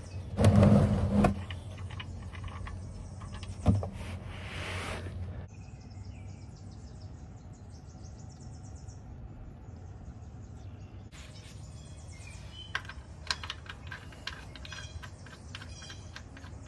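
Hand and tool noises under a Ford Fiesta during an oil change, as the oil drain plug is worked out of the pan and old oil drains into a drain pan. There is a loud rustle-knock near the start, a sharp click about four seconds in followed by a short hiss, and scattered clicks later on. Birds chirp faintly in the background.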